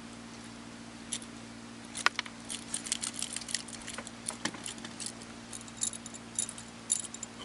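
Irregular sharp clicks and light metallic jingling, starting about a second in and coming thick and fast from about two seconds on: hands working the hook and terminal tackle out of a freshly caught small black sea bream. A steady low hum runs underneath.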